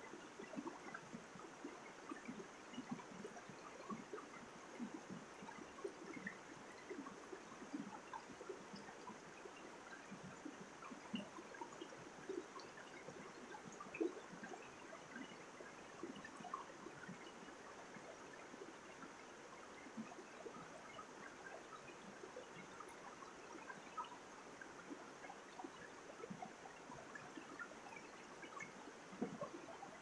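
Rocky mountain stream running over boulders and small cascades: a steady, soft rush of water with many small splashes throughout.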